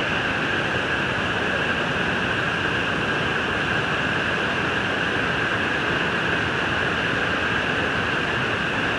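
Waterfall: falling water making a loud, steady rush that does not change.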